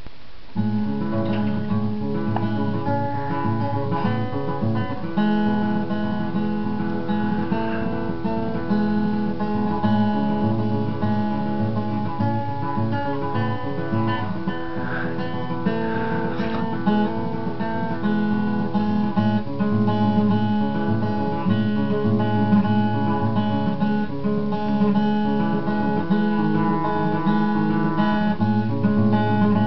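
Steel-string acoustic guitar played solo, an instrumental tune of chords and notes, starting about half a second in and carrying on steadily.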